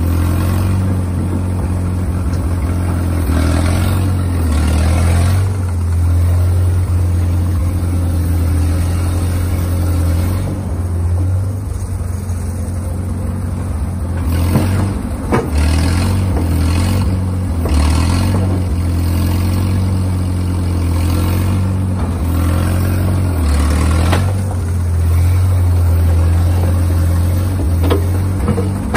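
Schield Bantam T35 cable excavator's LeRoi gasoline engine running steadily under load as the machine digs, lifts and swings its bucket, its note swelling and easing with the work. A few sharp clanks of the bucket and cable rigging, the clearest about halfway through.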